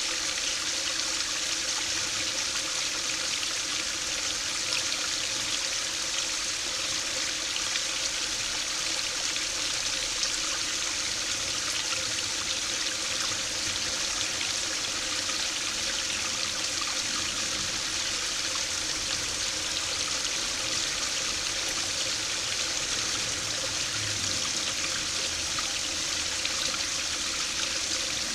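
Small waterfall of a stream spilling over a low stone sill and splashing into a shallow pool below: a steady splashing and trickling.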